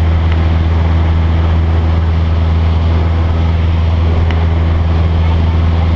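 Cessna 172's piston engine and propeller heard from inside the cabin in flight: a steady low drone with constant airflow hiss.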